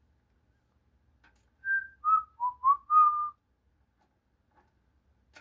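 A person whistling a short tune of five notes, falling then rising again, with the last note held a little longer.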